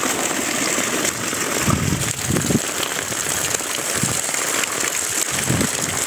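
Heavy rain falling on muddy floodwater running across the ground, a steady hiss, with a few dull low thumps.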